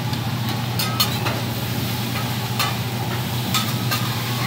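Vegetables sizzling on a hibachi's flat steel griddle, with a metal spatula clicking and scraping against the plate several times as the chef works the food.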